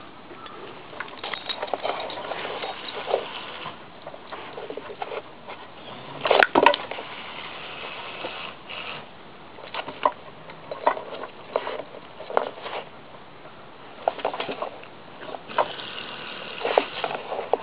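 A dog nosing and sniffing about in dry grass and straw, with irregular rustling and scattered clicks, and one loud sharp knock about six and a half seconds in.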